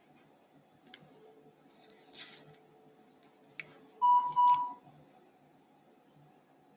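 Electrosurgical vessel-sealing generator: a faint steady tone while the seal is applied, then two loud beeps about four seconds in, the signal that the seal cycle is complete. A short hiss comes about two seconds in.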